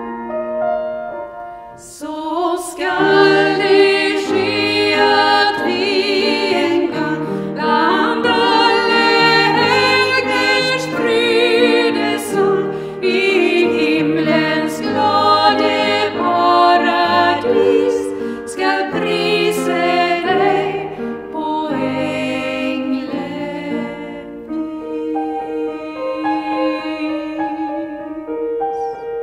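A woman singing solo with vibrato over upright piano accompaniment. The piano plays alone for about two seconds before the voice comes in and carries on alone for the last few seconds after she stops.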